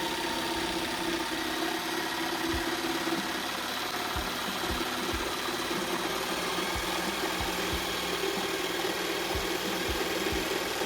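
Bosch PST 800 PEL electric jigsaw running steadily, a motor hum with a rattle of the reciprocating blade and irregular low knocks.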